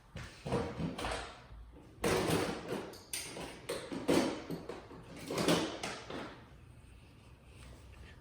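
Handling noises of a laptop being worked on with small tools: a series of irregular scrapes, rubs and knocks that die down over the last two seconds.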